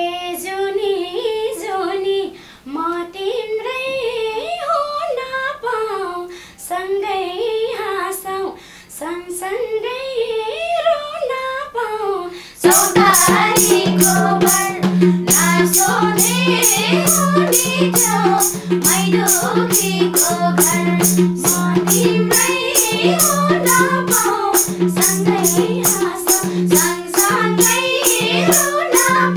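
Nepali lok dohori folk song: women singing a wavering melody over a steady drone. About twelve seconds in it gets louder as the madal and jingling percussion come in with a steady beat under the singing.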